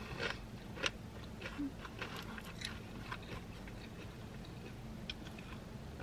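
A person chewing a tortilla chip dipped in queso close to the microphone: faint, irregular crunches, several in the first three seconds and thinning out after that.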